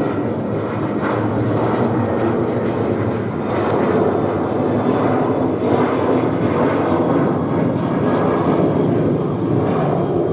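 Airplane flying overhead, its engines giving a steady drone.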